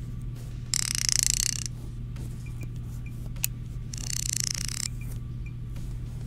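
Two short, hissy swishes, each about a second long and about three seconds apart, with a single sharp click between them, over a steady low hum.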